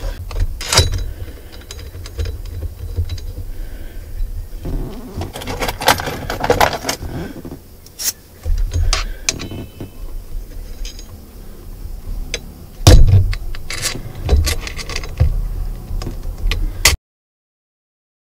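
Metal hardware handled while a steering wheel is bolted onto its hub: bolts and long threaded spacer nuts clinking and rattling, with irregular sharp clicks and dull knocks. The sound cuts out completely a little over a second before the end.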